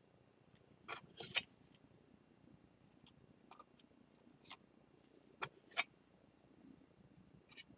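Sharp little clicks and taps of ceramic shards knocking together as the broken pieces of a bowl are fitted back into place. The loudest come a little over a second in and just before six seconds, with fainter ones between.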